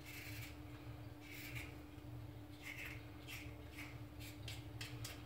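Soft, irregular scraping strokes of a hand vegetable peeler working over vegetables, about a stroke every second or so, over a faint steady hum.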